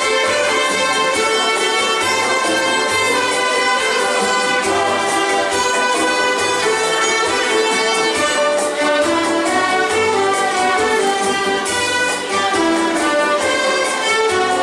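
An ensemble of violins playing a lively folk dance tune together, with notes changing quickly throughout.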